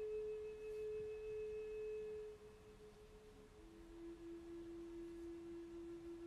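Soft, steady pure tones: one held note that fades about two and a half seconds in, then a lower held note from about three and a half seconds in.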